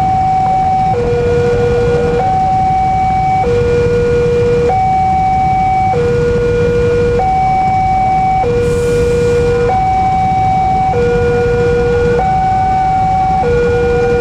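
Railway level-crossing warning alarm sounding, a steady electronic two-tone signal that alternates a higher and a lower tone about every second and a quarter, warning that a train is coming and the crossing is closed. Under it runs the low rumble of waiting traffic.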